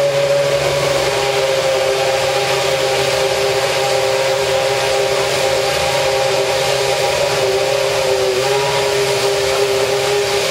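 McLaren MP4-23 Formula One car's Mercedes-Benz 2.4-litre V8 running at a loud, steady idle just after being started. Its high, even note sags slightly about eight seconds in.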